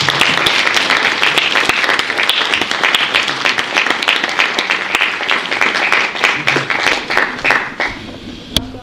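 Audience applauding, a dense patter of many hands clapping that thins out and dies away about eight seconds in.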